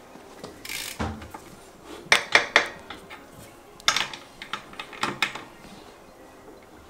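Sharp metallic clinks of a socket and bar being fitted and worked on a BMX rear axle nut, coming in three short groups, with a dull knock about a second in.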